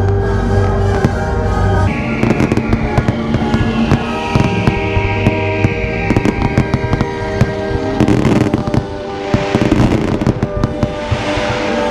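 A fireworks display going off to music played with the show: rapid bangs and crackles over steady musical tones, with bursts of crackling hiss in the last few seconds.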